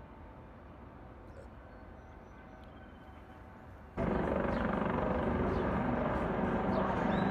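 Quiet background hum, then about four seconds in an abrupt cut to a loud, steady engine-driven vehicle noise.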